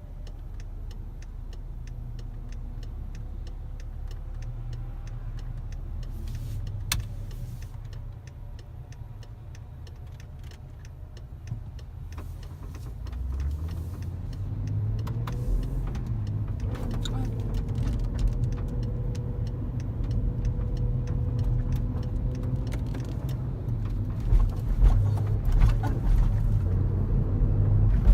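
Inside the cabin of a BMW E70 X5 xDrive35i: a regular ticking over a low idle, then the engine rises in pitch as the SUV accelerates away. Near the end come a few sudden thumps: the hard jerks and knocks under acceleration that the owner fears mean a bad transmission.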